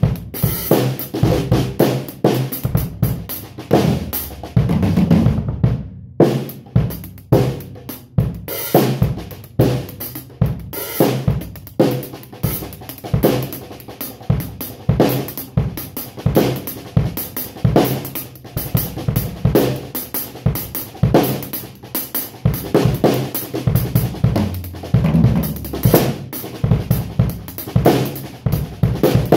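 Acoustic drum kit played freely: grooves on bass drum, snare and hi-hat with cymbals and fast fills. The playing stops briefly about six seconds in, then carries on.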